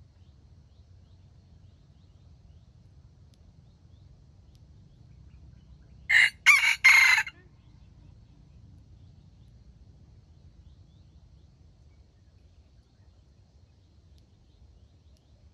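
A junglefowl rooster crows once about six seconds in: a short crow of just over a second, broken into three parts. A faint low rumble lies under the rest.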